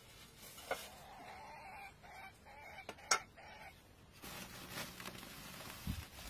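A chicken clucking in a run of short calls, with two sharp knocks, the louder one about three seconds in, and rustling near the end as a sack is handled.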